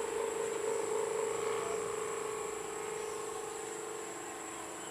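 Kite hummer (sendaren) on a flying kite, buzzing in the wind: a steady, rough snoring drone at one pitch that slowly fades.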